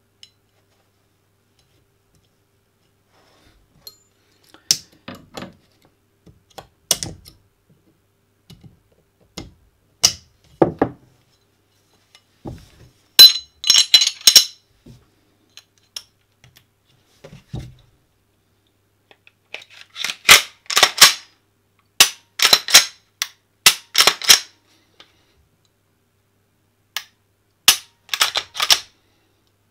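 Glock 17 Gen4 pistol being reassembled and worked by hand: sharp metal clicks and clacks come in short scattered groups. The busiest runs of clicks come about halfway through and again in the last third.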